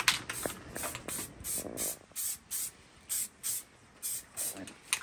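Aerosol spray-paint can hissing in a quick series of short bursts, about two a second, as green paint is sprayed onto rifle magazines.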